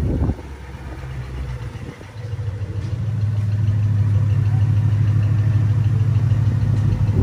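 Ford Mustang GT's 5.0-litre V8 idling steadily. Its level dips about a third of a second in and builds back up over the next few seconds.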